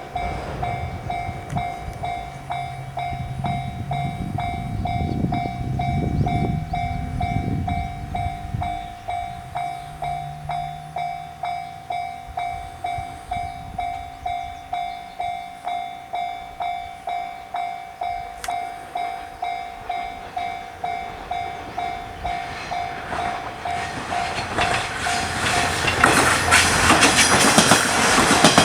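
A Japanese railway level-crossing bell gives the typical JR electronic "pon-pon" chime, a steady pulsing tone at about one and a half strokes a second, with a low engine hum in the first ten seconds. From about 23 seconds in, a three-car KiHa 110 diesel railcar arrives and passes, its rumble and wheel clacks rising to the loudest sound near the end and covering the bell.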